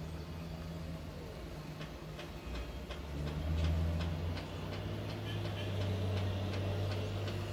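Light scattered clicks and taps from a cardboard-and-plastic blister card being handled, over a steady low hum that grows louder about three seconds in.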